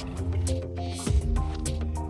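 Background music: held notes over a bass line with a steady beat of ticking percussion.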